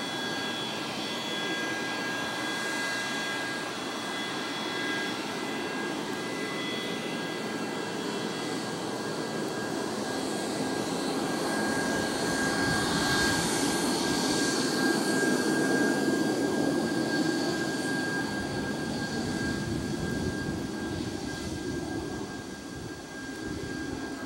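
Boeing 737-200's Pratt & Whitney JT8D low-bypass turbofan engines at takeoff power as the jet rolls and lifts off: a steady jet rumble with a thin high whine that grows louder, is loudest about two thirds of the way through, then eases slightly.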